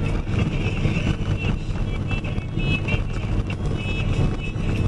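Box truck driving: a steady engine and road rumble, with music playing over it that has a wavering melody line.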